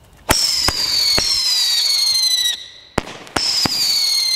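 Winda 'B2 Bomber' 36-shot, 500 g firework cake firing. Shots go off with sharp reports, three in the first second or so and three more about three seconds in. Each burst of firing carries a high, shrill whistle that falls slowly in pitch and lasts about two seconds.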